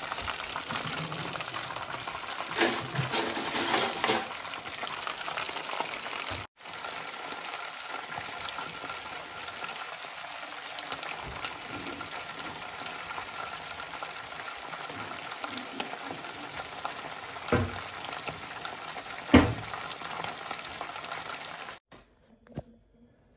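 Chicken pieces deep-frying in hot oil in a stainless steel pot: a steady sizzle. A loud clatter comes about three seconds in and two sharp knocks near the end, and the sizzle cuts off abruptly just before the end.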